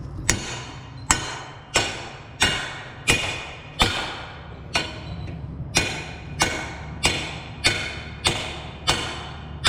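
Hammer striking a bolt into a cultivator shovel's mounting hole, about thirteen ringing metal-on-metal blows, roughly one every half to two-thirds of a second with a short pause near the middle. The bolt is being forced through paint-clogged holes and is bending rather than going in.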